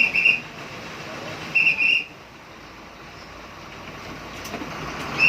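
A shrill whistle blown in quick double blasts three times: at the start, just under two seconds in, and again at the end, over low running vehicle noise.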